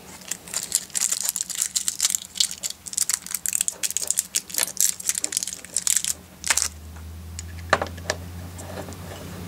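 Quick clicks and light crinkling from small parts being handled as disc batteries are set into the battery compartment of a rifle-scope light and laser unit. A low steady hum comes in about six seconds in, with a few more sharp clicks.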